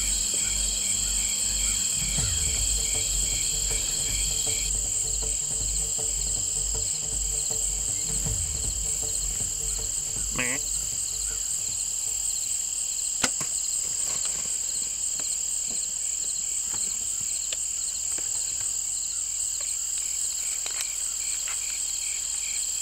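Insect chorus, crickets or the like, trilling steadily at a high pitch, with one sharp click about thirteen seconds in.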